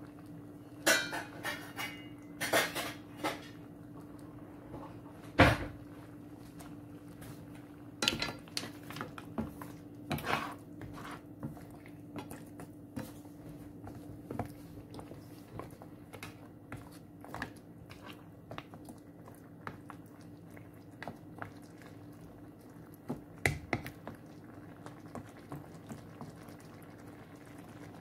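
New Zealand green-lipped mussel shells clinking and knocking against each other and the frying pan as a wooden spatula stirs them, in scattered bursts with the loudest knock about five seconds in. A steady low hum runs underneath.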